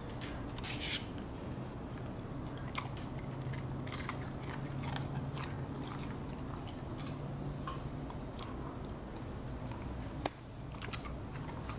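Siberian huskies chewing treats: irregular small crunches and clicks, with one sharper click about ten seconds in.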